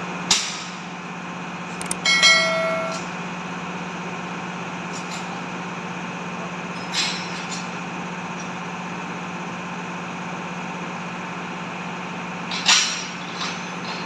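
A few sharp metal knocks from steel tools at work on an excavator swing bearing ring gear. The knock just after two seconds rings briefly, like struck steel. A steady low hum runs underneath.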